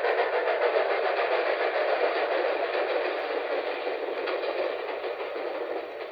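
Passing train on a vintage wire recording: a thin, narrow-band rush of train noise that slowly grows fainter, fading out at the end.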